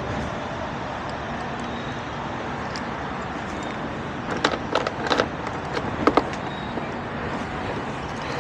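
Steady background rumble outdoors, with a few sharp clicks and knocks about halfway through and another pair about six seconds in.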